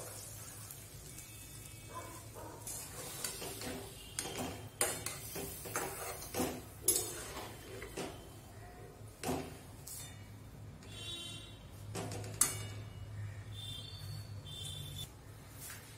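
A steel spatula clinking and scraping against a steel kadai as drumsticks and potatoes are stirred in a watery gravy: irregular sharp knocks, the loudest about twelve seconds in, with brief metallic ringing near the end. A steady low hum runs underneath.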